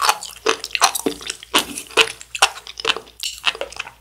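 Close-miked chewing of sea grapes: wet, irregular popping clicks as the little beads burst between the teeth.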